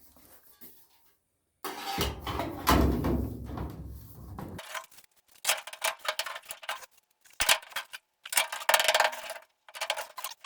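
Metal clattering and scraping in irregular bursts, as metal parts and tools are handled.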